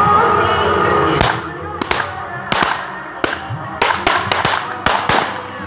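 Firecrackers going off: about a dozen sharp, irregular cracks, some in quick pairs, starting a little over a second in, over faint music that opens the sound.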